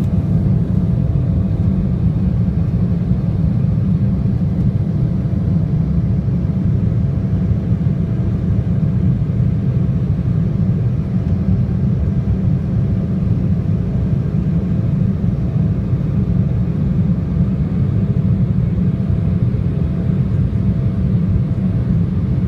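Airliner cabin noise during takeoff and climb: the engines and airflow make a loud, steady low rumble, with a faint steady hum above it.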